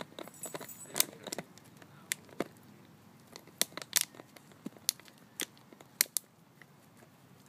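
A dog biting and pawing a thin plastic water bottle: irregular sharp crackles and clicks of the plastic crinkling. They come thickest in the first six seconds or so and thin out near the end.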